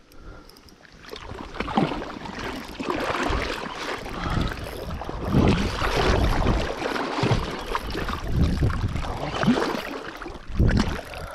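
Water sloshing and splashing irregularly, with many low thumps.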